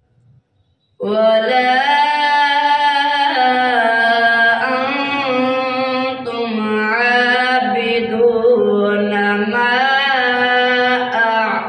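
A boy reciting the Quran in melodic tajweed style: one long, drawn-out phrase with ornamented turns of pitch, beginning about a second in.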